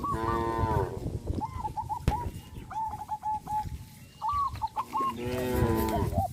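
Cows mooing, two long calls: one at the start and one about five seconds in. Short bird calls chirp in between.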